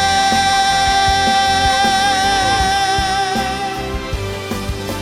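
Live pop band with a singer holding one long final note that takes on vibrato and fades out about four seconds in, followed by a few drum hits as the song ends.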